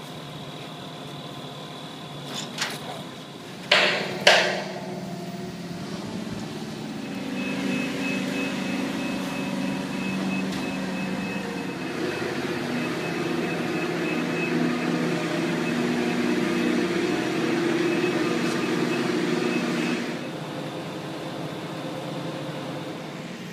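Two sharp clanks about four seconds in, then a mobile crane's engine and hoist running under load as it lifts a steel column, a steady mechanical sound with a high steady tone that cuts off about twenty seconds in.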